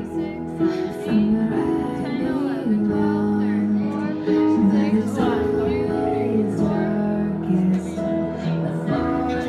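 Recorded show music with a female voice singing over instrumental accompaniment.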